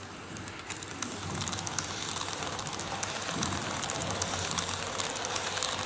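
N gauge model train, a KiHa 81/82-series diesel express set, running along its track and passing close by. Its wheels click rapidly on the rails over a steady running noise, growing louder about a second in.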